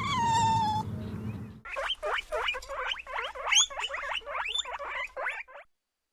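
An animal call sliding down in pitch, then a quick run of high, rising squeals, about three or four a second, that stops about half a second before the end.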